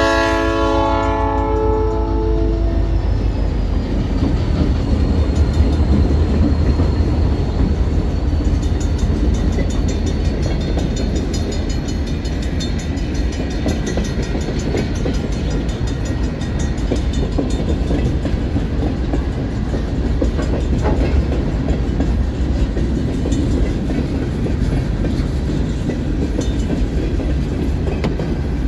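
A freight locomotive's cast P3 air horn sounds and cuts off within the first two seconds. Then EMD diesel locomotives and freight cars rumble past on the rails, with a steady low engine drone and wheel clatter.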